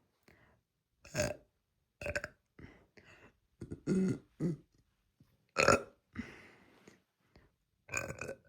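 A girl burping loudly on command: a series of about five short burps with smaller mouth sounds between them, the loudest a little past the middle.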